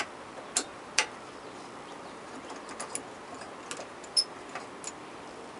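A steel Allen wrench clicking and ticking in the cap bolt of a steering antler as the bolt is turned loose. There are about eight short, scattered clicks, the sharpest about a second in and just after four seconds.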